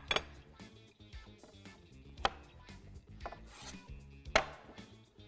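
Cleaver-style knife cutting carrot and zucchini on a wooden cutting board: a few separate sharp knocks of the blade hitting the board, with quiet background music underneath.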